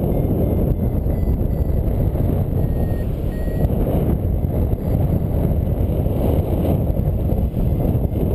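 Airflow buffeting the microphone in flight under a paraglider, a steady low rush, with faint short high beeps from a variometer signalling a climb.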